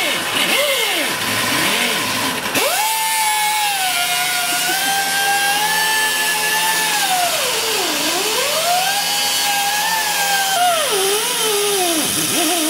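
Air-powered cut-off tool with an abrasive disc whining at high speed as it cuts through rusted exhaust bolts. The pitch drops sharply each time the disc bites into the steel, twice, and climbs back as it frees up.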